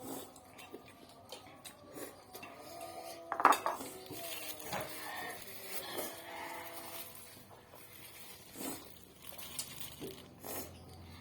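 Eating utensils clinking and knocking against a dish in scattered, irregular strikes, the loudest about three and a half seconds in.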